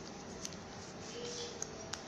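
Faint handling noise as a track jacket's collar is adjusted by hand: a few short, sharp clicks over a low background hiss.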